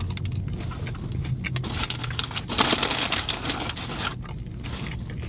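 Close-up chewing of a mouthful of soft-bun sandwich: wet, crackly mouth clicks, busiest in the middle.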